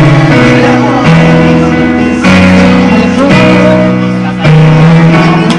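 A girl singing into a microphone over amplified instrumental accompaniment, the held chords changing about once a second.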